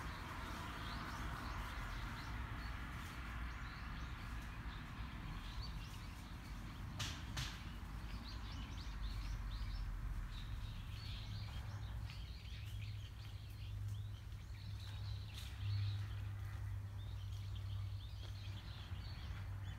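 Outdoor ambience: a steady low background rumble with small birds chirping, the chirps coming more often in the second half. Two faint clicks sound about seven seconds in.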